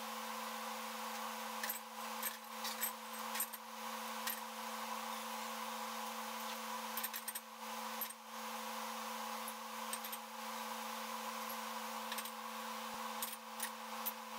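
Faint knocks and clinks of boxes and crates of drink bottles being lifted and set down, over a steady low hum.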